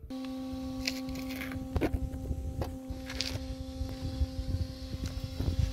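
A steady hum at one pitch, over a low rumble, with scattered clicks and knocks.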